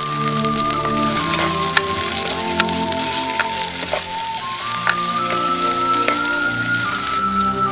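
Oil sizzling in a clay pot as sliced onions are stirred in with curry leaves, green chillies and garlic, with scattered sharp crackles. Soft instrumental music with a slow stepping melody plays over it.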